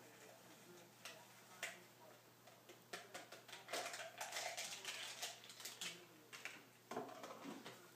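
Faint plastic clicks, taps and scraping as a shaker cup and scoop are handled while a powdered drink mix is prepared. The busiest scraping is in the middle, and a sharper knock comes about seven seconds in.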